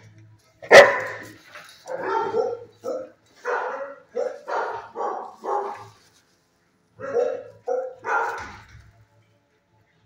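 Dog barking in short runs, about a dozen barks, the loudest about a second in.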